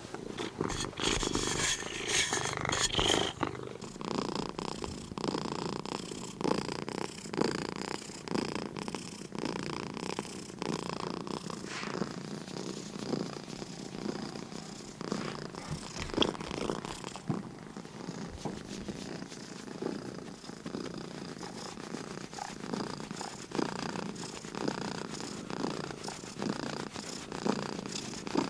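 Domestic cat purring close to the microphone, steady and continuous, swelling and fading in a regular rhythm. A brief scratchy noise sits over it in the first few seconds.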